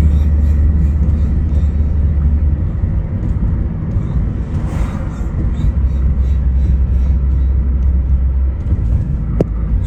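Road traffic noise: a steady low rumble that eases off for a few seconds, with a brief swell of hiss about halfway through and a sharp click near the end.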